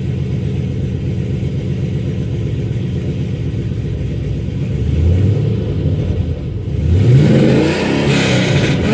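Chevrolet Camaro engine idling steadily just after being started, then revved: a short blip about five seconds in, and a bigger rise and fall of revs about seven seconds in, with more revving near the end.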